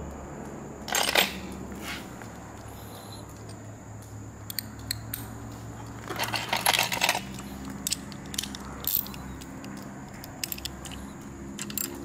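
Small metal hand tools clinking and rattling as they are picked up and handled. There is a short sharp jangle about a second in, a longer rattle around six to seven seconds, and scattered single clicks between them.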